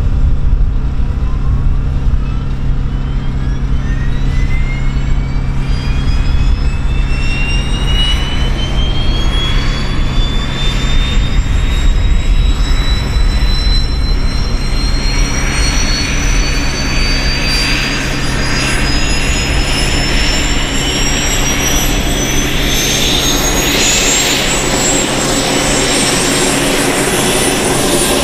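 Lockheed C-130J Super Hercules's Rolls-Royce AE 2100 turboprop engine spooling up: a loud whine that climbs steadily in pitch, quickly at first and then levelling off, over a steady low drone.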